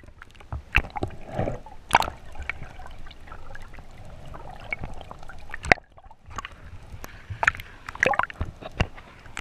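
Water sloshing and gurgling around a camera held underwater, heard muffled, with irregular sharp clicks and knocks about every second.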